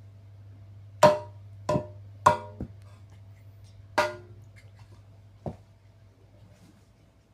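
A Mr. Coffee coffee maker being struck: about five sharp knocks at uneven intervals, each with a brief ring, the first one about a second in the loudest.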